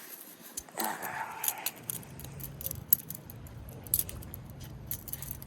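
A balisong (butterfly knife) being flipped by hand: irregular sharp metallic clicks and rattles as the handles and blade swing and knock together.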